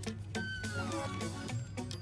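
Background music with a steady beat; about half a second in, a high tone slides down in pitch for under a second.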